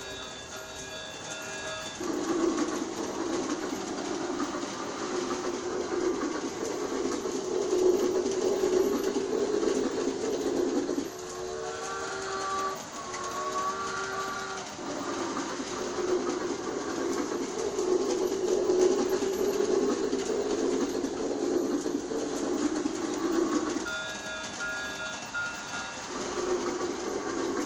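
G scale toy steam train set running, with a steady chuffing rush and its steam whistle sounding three times: briefly near the start, as a longer two-note blast around the middle, and again near the end.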